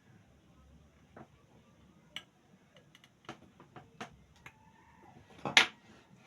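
Scattered light clicks and taps, irregularly spaced, then one louder short knock about five and a half seconds in.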